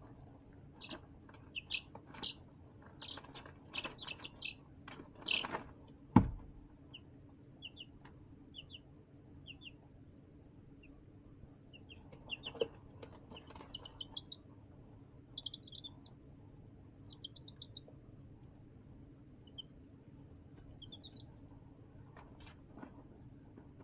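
Baby chicks peeping in short high chirps, some as quick trills, with clicks and scratching in the first few seconds and one loud, sharp thump about six seconds in.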